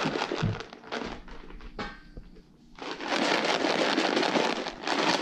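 A plastic tub of Temptations cat treats being shaken, the treats rattling inside in two long bouts with a short lull about two seconds in. The shaking is a signal that calls the cats to come for treats.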